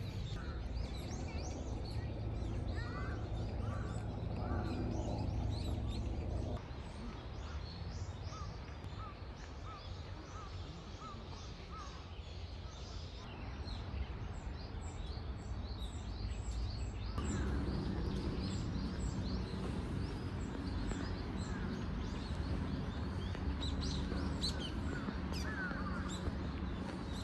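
Birds chirping and calling, many short high chirps and runs of repeated calls, over a steady low rumble of outdoor background noise. The background changes abruptly about six and seventeen seconds in.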